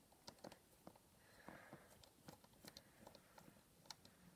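Near silence with faint, irregular small clicks from a precision screwdriver working a tiny screw inside an opened iPhone 5.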